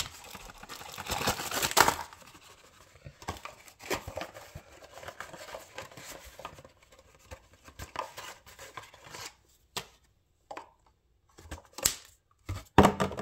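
Cardboard tackle box being handled and opened: a dense stretch of tearing and rustling for the first two seconds or so, then scattered rustles and light clicks as the box is shaken to tip its contents out.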